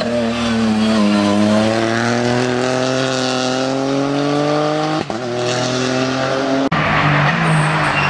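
Ford Fiesta rally car's engine pulling hard uphill. Its pitch dips, then rises steadily over the first five seconds. Sudden short breaks come about five and nearly seven seconds in, and the engine runs on after them.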